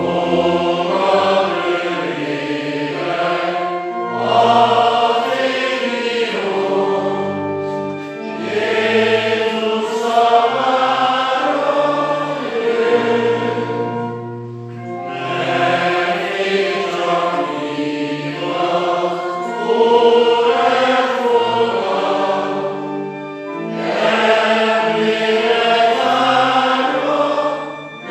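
Church congregation singing a slow hymn with pipe organ accompaniment. It goes line by line, with a short dip between lines every six to nine seconds.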